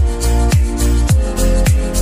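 Electronic background music: a deep, pitch-dropping kick drum on every beat, a little under two a second, under sustained synth chords.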